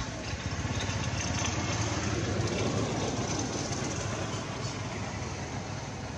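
Motor vehicle engine running, swelling to its loudest a couple of seconds in and then slowly fading.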